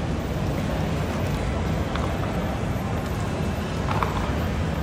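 Steady low din of an airport terminal hall, with a few faint clicks.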